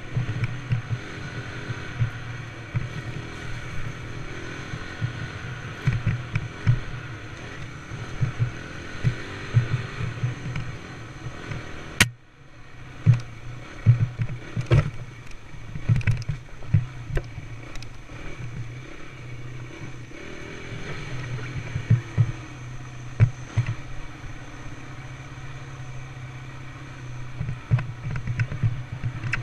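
Dirt bike engine running at low, fairly steady revs along a rough trail, with frequent short knocks and rattles from the bike. A sharp click and a brief drop-out break the sound about twelve seconds in.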